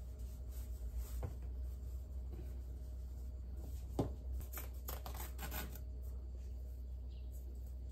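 White cotton cloth being handled and shaken out, with soft rustles clustered a little past the middle and one sharp light knock about four seconds in, over a low steady hum.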